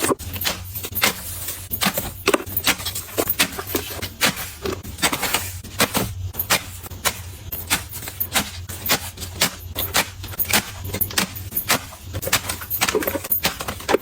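Quick, irregular clicks and clinks of small hard objects being picked up, knocked together and set down, several a second, over a steady low hum.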